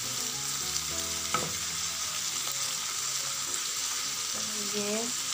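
Diced potatoes and capsicum frying in oil with spices in a pan on a gas stove, a steady sizzle while they are stirred and mixed. One sharp knock comes about a second and a half in.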